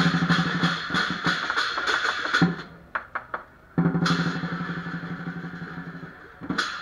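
Lion dance percussion: drum, cymbals and gong beating a fast pattern of strikes, breaking off about two and a half seconds in for a few sharp single hits. A loud strike about four seconds in then rings and fades for a couple of seconds before the beat picks up again near the end.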